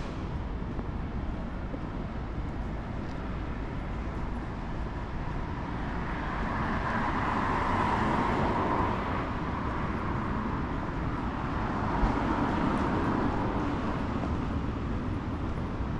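City street traffic: a steady low rumble, with a vehicle passing close by that swells up about halfway through and fades, and another passing soon after.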